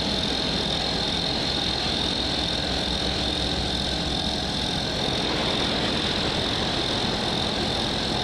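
A motor running steadily at a constant speed, with no change in pitch or level.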